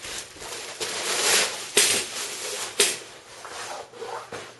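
Rustling and rubbing from handling a padded tripod bag still in its cellophane wrap, with two sharper crinkles about two and three seconds in, then quieter handling.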